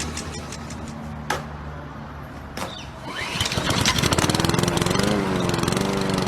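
Lawn mower's small petrol engine being pull-started: a few sharp clicks and a low hum, then it catches about three seconds in and runs louder, its pitch wavering.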